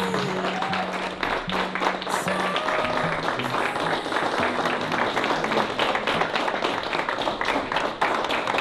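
A roomful of people applauding steadily, with music playing underneath.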